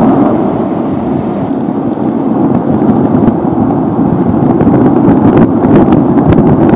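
Volcán de Fuego erupting: a loud, steady rushing roar as the ash column vents, easing a little and then swelling again in the second half.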